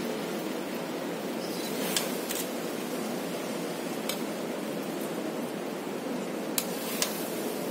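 Metal spatula clicking against a steel kadhai five or so times as poha (flattened rice) is stirred and tossed, over a steady background hiss.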